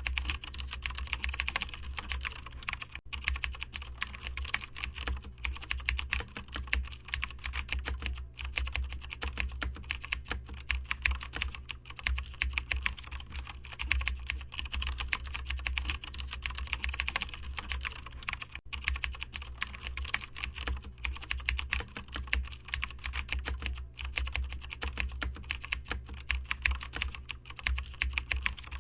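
Steady typing on a computer keyboard: a dense run of quick keystroke clicks with a few brief pauses, over a steady low hum.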